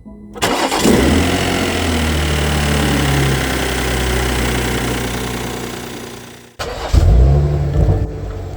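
BMW X7 engine starting: it catches with a brief flare in revs, then settles to a steady idle. The sound cuts off abruptly about six and a half seconds in, and a second start-up follows at once, flaring and settling again.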